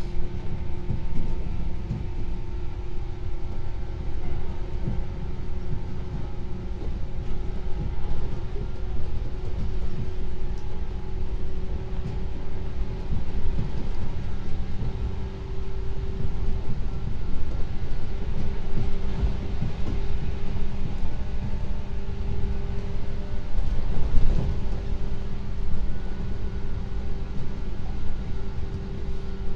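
113 series 0 subseries electric train running at steady speed: a continuous low rumble of the wheels and bogies, with a steady motor whine over it.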